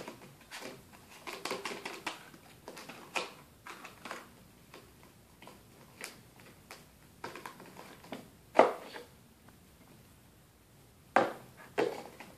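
Plastic toy containers being handled on a plastic play tray: scattered clicks and knocks of tubs, lids and bowl, with one loud knock about two-thirds of the way through and two more near the end.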